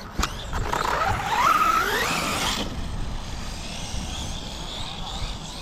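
Electric RC car's motor whining up in pitch as the car accelerates for about two seconds, then cutting off suddenly.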